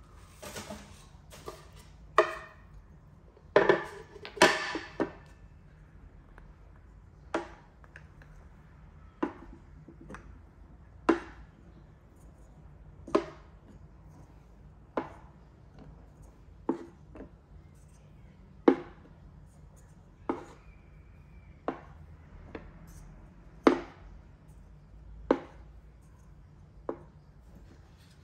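Solid linden wood cups set down one by one into a birch plywood tray, each giving a short sharp wooden knock, about one every one and a half to two seconds. The first five seconds hold a quicker cluster of wooden knocks and clatter.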